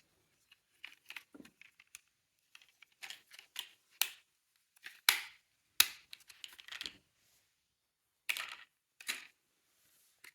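Irregular sharp clicks and clacks of small hard toy mini cars being handled, with a few louder knocks around the middle and near the end.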